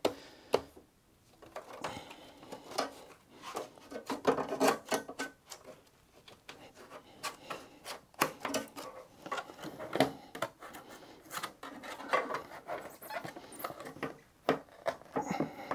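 Hands working battery cells and stiff plastic sheeting into a tight-fitting battery case: irregular rubbing, scraping and small clicks and knocks.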